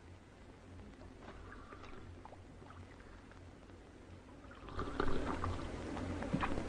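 Water sloshing and trickling, faint at first, then louder and splashier from about two-thirds of the way in.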